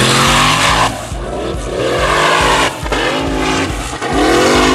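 Off-road buggy engine revving hard in repeated rising surges, about one a second, as it claws up a steep gravel slope, with a rushing hiss of spinning tyres and spraying gravel.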